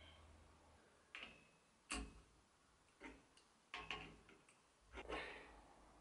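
About five faint clicks and taps, roughly one a second, of small metal parts being handled as an M6 nut is fitted over the washer and spring of a HiteRite seat-post dropper.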